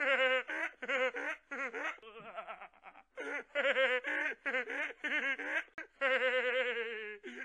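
A teenage boy laughing hysterically: a high-pitched laugh whose pitch wavers rapidly, coming in repeated bursts with short gasping gaps and one longer unbroken bout near the end.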